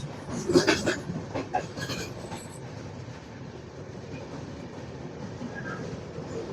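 Train running on rails: a few clattering knocks in the first couple of seconds, then a steady rumble.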